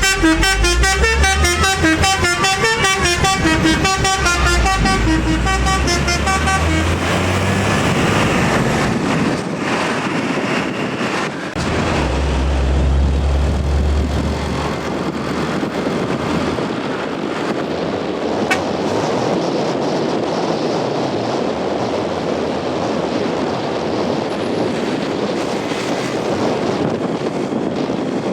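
A bus's Basuri 'telolet' multi-tone horn playing a quick stepping melody, which stops about six seconds in. A low bus engine rumble follows a little later, then steady road and traffic noise.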